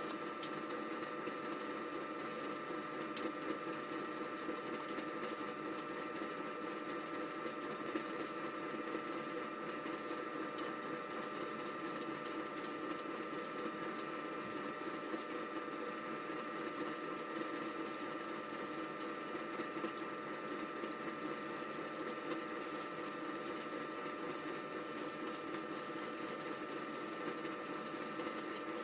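Time-lapse sound of an engine block being scrubbed clean, played back fast: a dense, even chatter of rapid scrubbing and small clicks over a steady hum.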